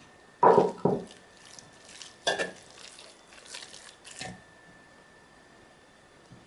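Metal spoon knocking and scraping against a stainless steel bowl while mixing grated carrot, celery and onion with oil. There are several separate clinks in the first part, the loudest about half a second and a little over two seconds in, and then it goes quiet.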